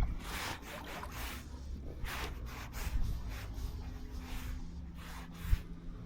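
A run of short rustling swishes, about one or two a second, over a faint steady low hum.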